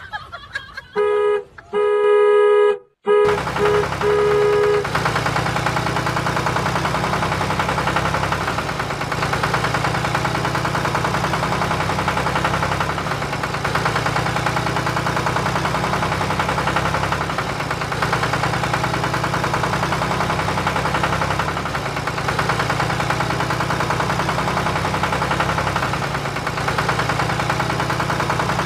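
A truck horn honks a few times in the first seconds, then a truck engine idles steadily with a fast even throb. The sounds are a dubbed sound effect; the toy trucks themselves are not running.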